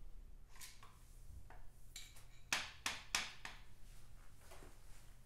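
Sharp metallic clicks and clanks from the front prop stand of a 1951 Vincent Rapide and its newly fitted spring as it is worked, several in quick succession about two to three and a half seconds in.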